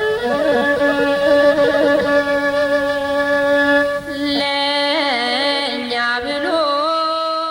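Slow melodic intro music made of long held notes that bend and slide between pitches.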